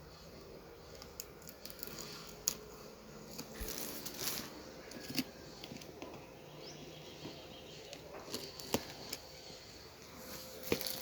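Packaging being handled and opened: scattered clicks and taps with brief rustling and tearing, busiest about four seconds in, and a few sharp clicks later on.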